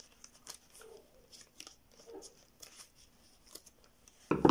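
Scissors snipping small cuts into a thin black plastic sheet: a scatter of light, quick clicks, with one louder knock near the end.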